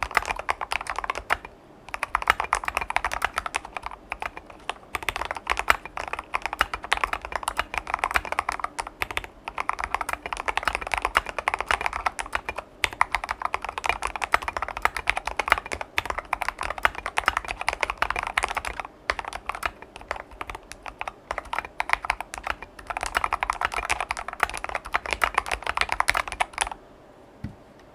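Typing on a KBD75v2 custom mechanical keyboard with lubed and filmed Gateron Ink Black linear switches, a brass plate, case foam and SA PBT keycaps: fast runs of keystrokes with short pauses between them, stopping near the end.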